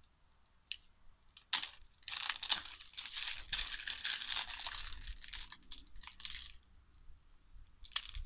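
Knife cutting and scraping along a power cable's plastic outer sheath as it is stripped: a sharp stroke about a second and a half in, then several seconds of continuous rasping, crinkly scraping that stops, with one more stroke near the end.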